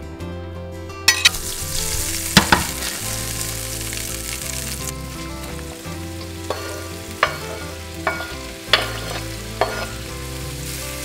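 Butter sizzling in a hot frying pan. Sliced mushrooms are scraped in off a wooden cutting board, with a series of sharp knocks and scrapes of board and knife against the pan. The sizzle starts about a second in and holds steady.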